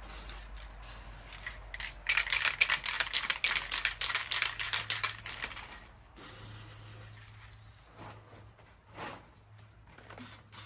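Aerosol spray-paint can in use: a loud, fast rattling hiss for about four seconds, then a few fainter short bursts.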